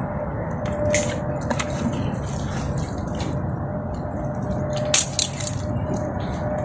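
Wet mud and water squelching and sloshing as a bare hand and arm dig into a flooded mud crab burrow, with a few short sharp clicks.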